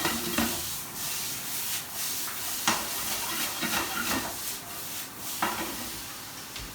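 Stir-fry sizzling in hot oil as chili paste, onion and capsicum are tossed, with a utensil scraping and knocking against the pan several times.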